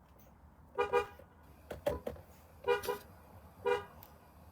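Car horn honked in a series of about four short beeps, roughly a second apart, some doubled.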